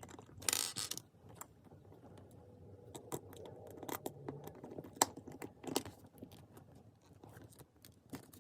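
Small plastic Lego minifigure parts clicking and rattling as they are handled and snapped together, with short rustles of the packet.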